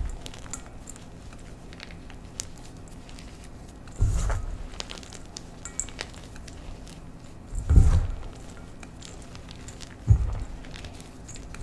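Chunks of gym chalk mixed with pigment powder being squeezed and crumbled by hand in a stainless-steel bowl: fine crackling and crunching throughout, with three dull thumps as the hands press down, about four, eight and ten seconds in.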